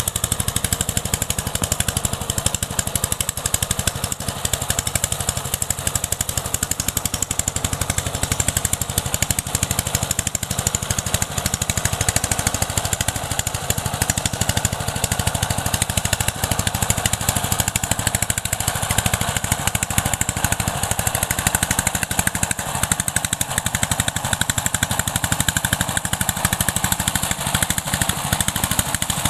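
The 12 HP single-cylinder diesel engine of a two-wheel power tiller runs steadily under load as it puddles a flooded paddy, its firing strokes coming as a rapid, even beat.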